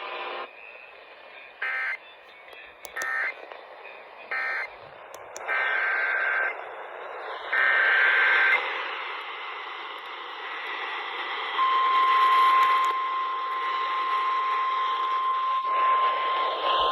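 NOAA Weather Radio receiver over static hiss: three short bursts of the SAME end-of-message data code, then two longer data bursts of a new alert header. About two-thirds of the way through, the steady 1050 Hz weather radio warning alarm tone starts and holds.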